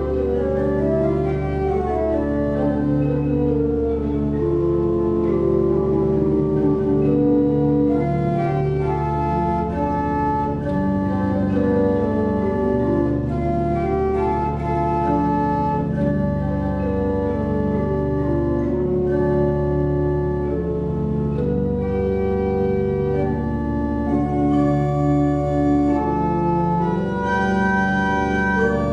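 Church pipe organ playing slow sustained chords, with moving upper voices over a low pedal note held throughout.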